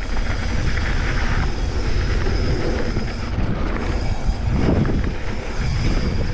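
Wind buffeting the microphone as a mountain bike rolls fast down a dirt singletrack, with the tyres rolling over the packed dirt and gravel. It makes a steady, loud, deep rumble.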